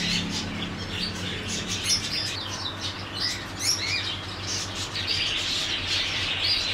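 Many caged pet birds chirping and tweeting at once, a dense, unbroken chatter of short high calls, over a steady low hum.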